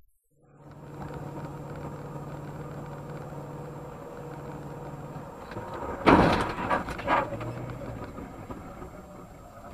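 Steady road and engine noise heard from a dashcam car, then about six seconds in a loud crash as it rear-ends the car ahead, followed by two more bangs within about a second.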